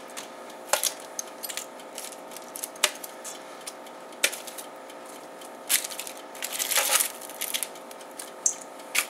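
Kitchen tongs clinking and scraping against a stainless steel bowl as chicken wings are dunked in sauce: irregular sharp clicks and clanks, a few bunched together in quick succession, over a faint steady hum.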